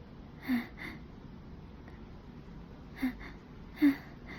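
A woman's short, catching in-breaths with a little voice in them: two quick ones about half a second in, then two more near the end, the last the loudest. These are the hitching breaths of an allergy sneeze that she is holding back.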